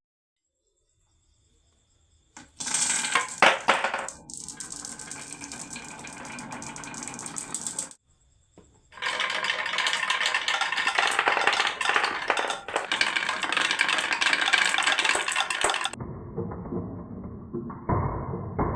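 Marbles rolling and clacking down a wooden marble run in two stretches of dense rattling with sharp clicks, separated by a brief pause. Near the end a duller, muffled sound takes over.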